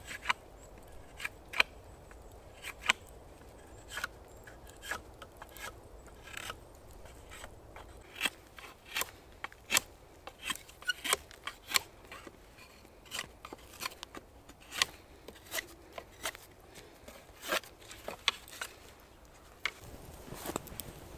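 A long run of sharp, irregularly spaced clicks and snips from hand work at camp, about one or two a second.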